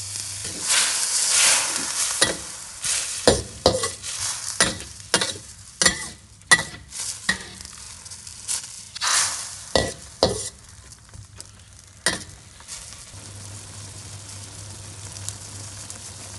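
Spatula scraping and clacking against a wok as glass noodles and minced pork are stir-fried in a little liquid, a quick run of sharp strokes over a frying hiss. Near the end the stirring stops and only a quieter steady frying sound remains.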